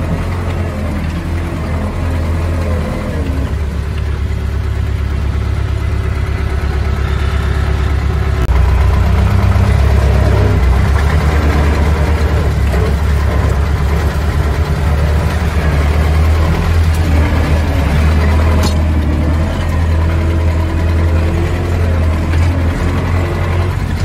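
Diesel engine running steadily, getting a little louder about eight seconds in.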